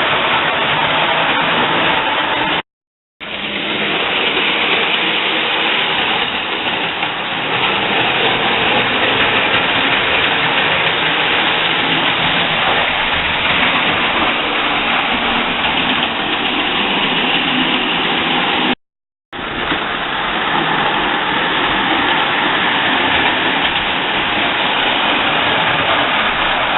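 Standard gauge model train running on its track, giving a steady, loud rumbling clatter. The sound cuts out completely twice for about half a second, once near the start and once about two-thirds of the way through.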